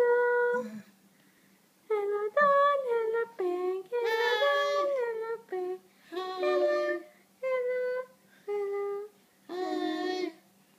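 A high-pitched voice singing or humming a simple tune in short held notes, with brief pauses between phrases.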